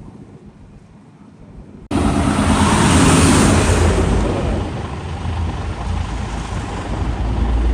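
Faint background noise, then about two seconds in a loud, steady motor rumble with a rushing noise over it starts abruptly and continues.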